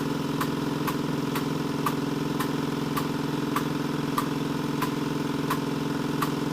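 Old, worn air compressor running steadily with a sharp tick about twice a second, struggling to build any pressure in its tank.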